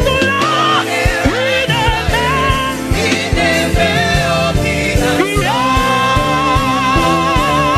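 Live gospel music: a woman singing wordless runs over a band with drums and bass, then holding one long high note with vibrato from about halfway through.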